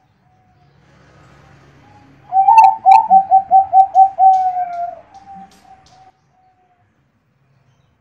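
Zebra dove (perkutut, Bangkok contest strain) cooing its song: a quick run of about eight short notes, about four a second, starting about two seconds in. The last note is drawn out, and the song trails off into fainter notes.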